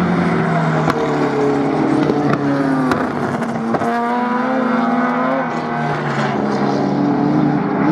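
Improved Production race car engines at full throttle. The pitch climbs through each gear and drops sharply at the shifts, about four and five and a half seconds in.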